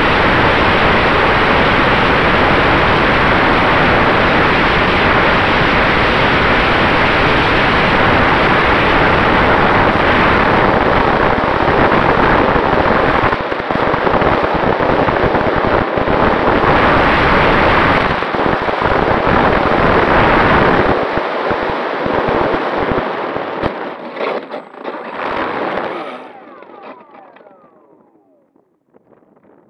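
Wind rushing over the microphone of a radio-control Maule model plane's onboard camera, mixed with the plane's propeller noise in flight, loud and steady. About two-thirds of the way through it turns choppy, then dies away as the plane comes to rest on snow with its propeller stopped.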